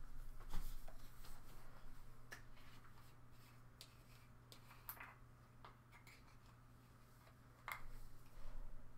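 Faint scattered clicks and knocks of things being handled in a kitchen, with the sharpest about half a second in and near the end, over a steady low hum.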